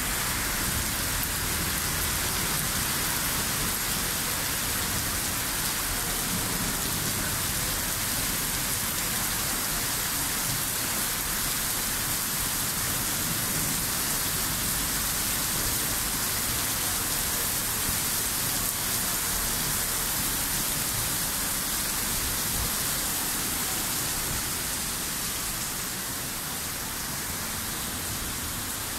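Heavy rain pouring onto a city street and pavement, a steady dense hiss of downpour; it gets a little softer near the end.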